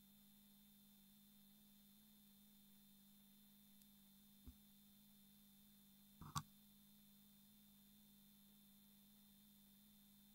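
Near silence with a faint steady hum, broken by a small click about four and a half seconds in and a sharper knock a little after six seconds.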